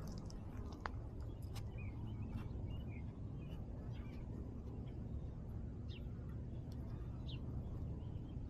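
Small birds giving short chirps here and there over a steady low rumble, with a sharp click or two near the start.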